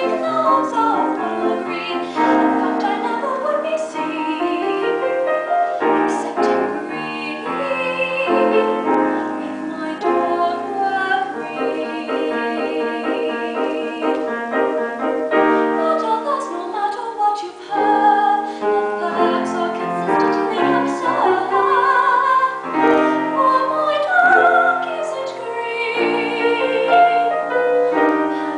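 A woman singing solo in a classical, operatic style with vibrato, accompanied by piano.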